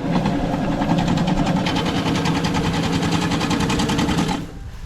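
A motor-driven machine runs with a fast, even rattle and a steady hum for about four seconds, starting and stopping abruptly.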